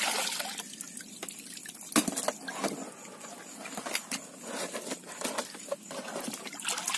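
Water splashing and trickling as a hand rummages through a pile of freshly caught mullet in shallow water in the bottom of a fishing boat, washing the catch: uneven small splashes with a louder knock about two seconds in.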